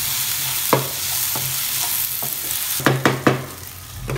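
Kovakka (ivy gourd) slices sizzling loudly in a hot nonstick pan with a little water just added, stirred with a wooden spatula. The sizzle is broken by a few sharp knocks of the spatula and the glass lid against the pan, and dies down about three seconds in.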